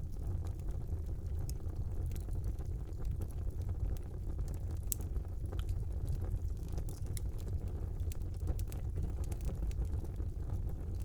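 Fire burning in a fireplace: a steady low rumble with frequent scattered crackles and pops, one sharper pop about five seconds in.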